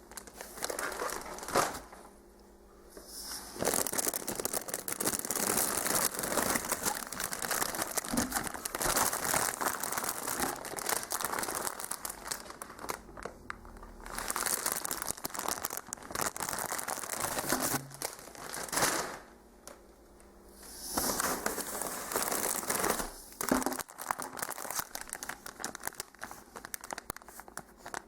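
Plastic packaging crinkling and rustling as a package is unwrapped, in several long stretches broken by short pauses.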